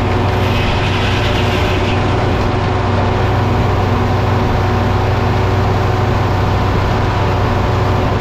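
Heavy diesel engine running steadily at a constant speed, with a strong low hum.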